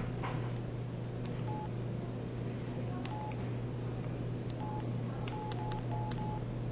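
PG-S4600 mobile phone's keypad tones: short single-pitch beeps as keys are pressed, spaced out at first and then several in quick succession near the end, with faint key clicks over a steady low hum.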